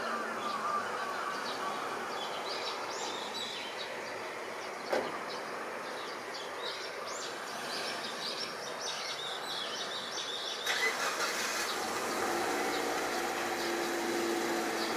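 Steady urban background noise with small birds chirping through the middle stretch, and a single sharp click about five seconds in.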